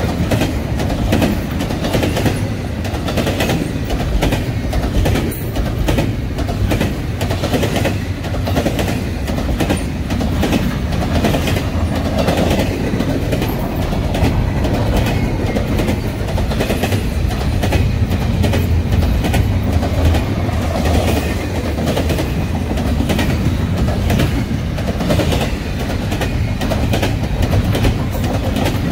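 Double-stack intermodal well cars of a freight train rolling past: a steady low rumble of steel wheels on rail with repeated clickety-clack as the wheel sets cross the rail joints.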